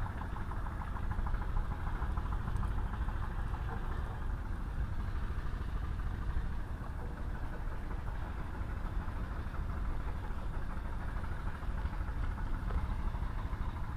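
Steady low rumble and hiss of open-air background noise, with no distinct events.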